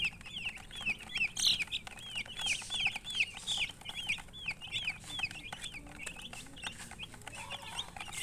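A flock of young domestic chicken chicks peeping steadily: many short, high, down-curving peeps that overlap, several a second.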